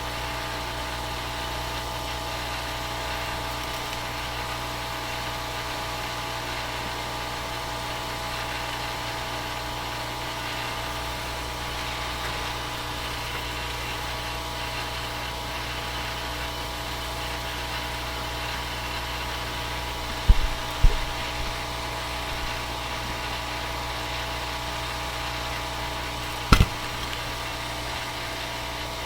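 Steady workshop hum with several fixed tones, unchanging throughout. About two-thirds of the way through it is broken by two sharp taps in quick succession, and by one more shortly before the end, as of small tools or parts set down on the bench.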